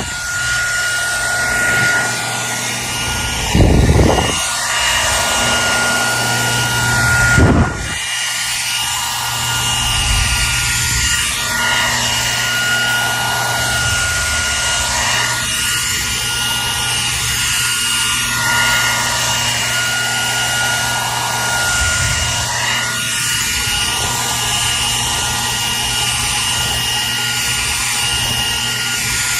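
Hair dryer running steadily: a constant rushing of air with a high whine and a low motor hum. A couple of short low thumps come in the first eight seconds.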